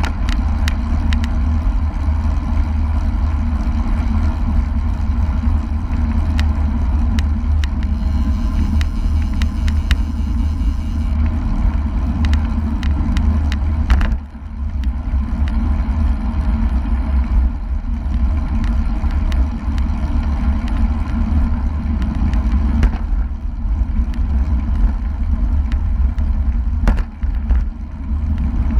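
Wind rushing over an action camera's microphone on a road bike riding at about 36 km/h, a steady low rumble with tyre and road noise and scattered small clicks and rattles. It drops away briefly about halfway through.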